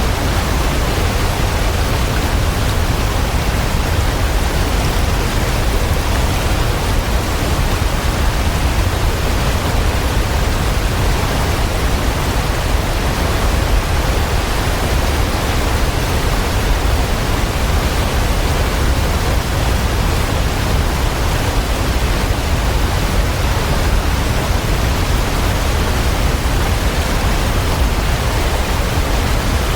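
Waterfall: a steady, even rush of falling water with no breaks, strongest in the low rumble.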